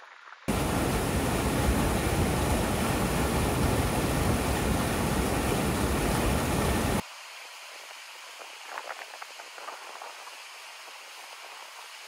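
Rushing white water of a mountain stream cascading over rocks. About half a second in it turns loud and close, with a dense, even roar. About seven seconds in it cuts suddenly to a quieter, more distant rush of the river, with a few faint crackles.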